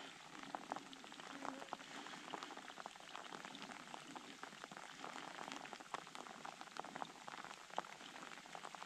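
Faint water patter: many small irregular drips and ticks over a low steady hiss.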